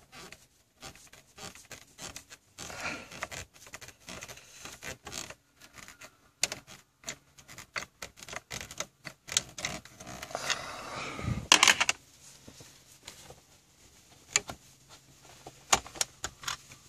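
Rapid, irregular clicking of a ratcheting screwdriver and metal-on-trim scraping as the stereo's mounting screws are backed out, with one louder knock about eleven seconds in.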